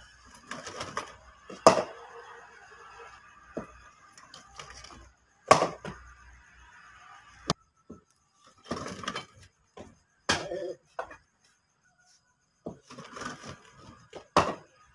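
Sharp knocks of a cricket ball during wheelchair batting practice on a concrete pitch. There are five, spread out, with the loudest about two seconds in, and faint voices between them.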